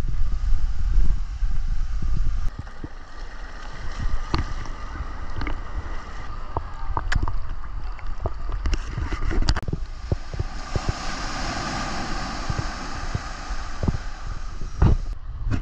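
Wind rumbling on the microphone for the first couple of seconds, then water splashing and lapping around a camera held at the sea surface with a swimmer. Later a wave breaks and washes up the sand with a steady hiss, and a single thump comes near the end.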